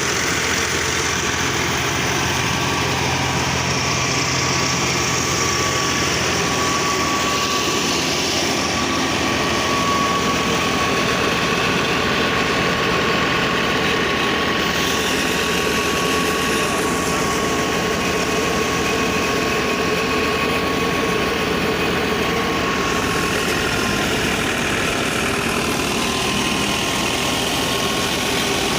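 Wheat threshing machine running steadily, a continuous engine-driven hum with a steady whine.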